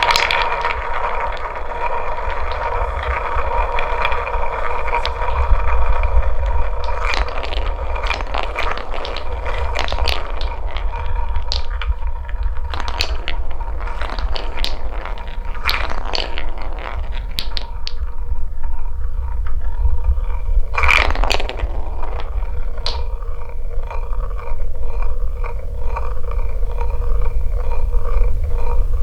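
Marbles rolling along a wooden marble run: a steady low rumble with many scattered clicks and clacks as the balls strike the track and one another.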